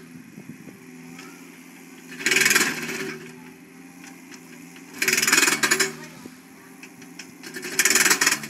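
Skid-steer loader's diesel engine running steadily, with three loud bursts of crunching and grinding, about every three seconds, as it breaks away concrete at the base of a stave silo.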